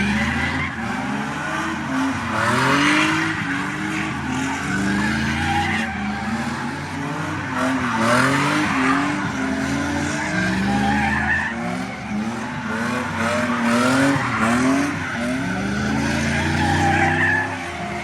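A drifting car's engine revving up and dropping back over and over, with tires squealing and skidding.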